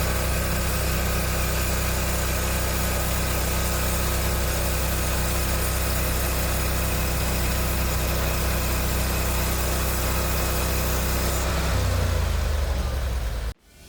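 Sawmill's engine running steadily at an even pitch. A little before the end its sound changes and thins, then cuts off suddenly.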